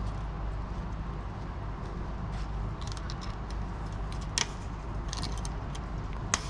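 Light metallic clinks and jingles come in scattered clusters, with two sharper clicks, the second near the end, over a steady low hum.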